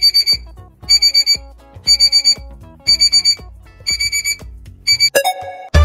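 Electronic alarm-clock-style beeping of a quiz countdown timer: a quick burst of about four beeps roughly once a second over soft background music. About five seconds in a rising whoosh plays, and loud music starts near the end.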